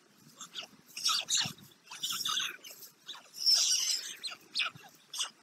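Dry straw and sticks of a stork nest rustling and crackling in irregular bursts as hands move through it.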